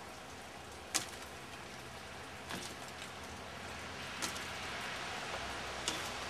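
Four short, sharp knocks or snaps, about one every second and a half, over a steady hiss that slowly grows louder.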